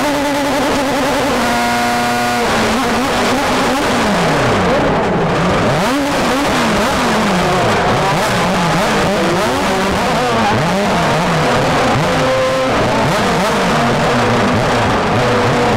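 Star Mazda race car's Mazda rotary engine heard from the cockpit. It holds a steady pitch at first; about two and a half seconds in, the revs begin climbing and dropping over and over.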